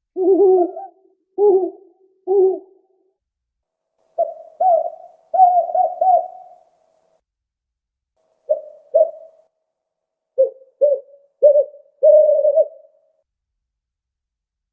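Owl hooting: short hoots in quick runs of two to five, with gaps of one to two seconds between runs. The later runs are pitched higher than the first.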